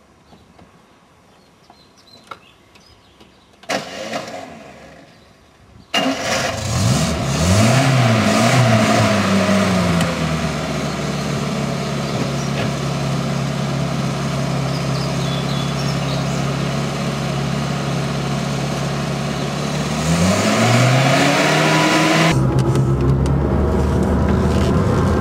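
Small Fiat 600-type car's engine starting suddenly about six seconds in, after a short burst of noise. It revs up and down, settles into a steady idle, and revs up again near the end.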